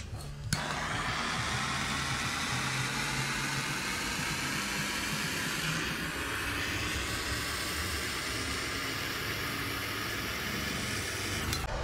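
Propane torch lit about half a second in, then burning with a steady hiss, its flame heating a steel leaf-spring collar. The hiss cuts off just before the end.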